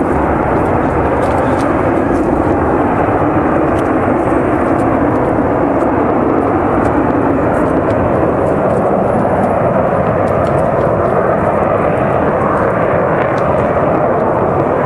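Gas pipeline fire: escaping gas burning in a towering jet of flame, making a loud, steady roar like a jet plane.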